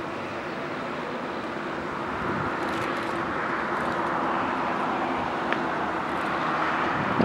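Boeing 747-8's four GEnx turbofan engines running at taxi idle as the jet rolls past. It is a steady rush of engine noise that grows louder about two seconds in.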